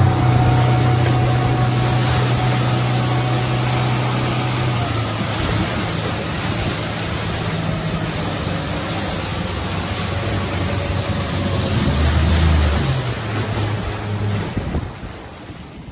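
Crab boat's motor running under way, with water rushing and splashing along the hull from the wake and wind noise. About a second before the end the engine note drops away and it all gets quieter as the boat slows.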